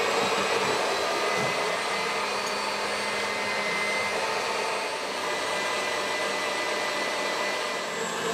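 Stand mixer running at high speed, its wire whisk beating egg yolks with sugar and cake emulsifier until thick: a steady motor whine over the whisking.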